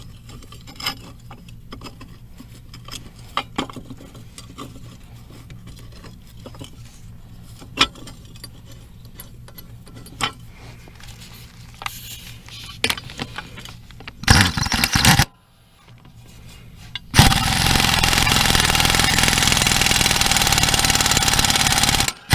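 Light clinks of tools and blade hardware being handled. Then a pneumatic impact wrench fires in a short burst of about a second, and about three seconds later runs hard for about five seconds, driving a mower blade bolt.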